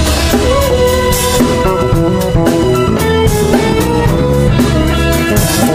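A live band playing an instrumental passage: an electric guitar, a Stratocaster-style solid-body, plays a busy melodic line of quick notes over drums, bass guitar and hand percussion.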